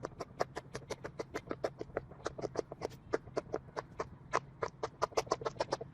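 Silicone pop-it fidget toy bubbles being pressed one after another: a rapid, slightly uneven run of sharp pops, about seven or eight a second.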